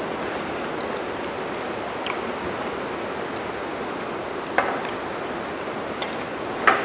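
Steady hiss of falling rain, with a few sharp clinks of forks on plates, the loudest near the end.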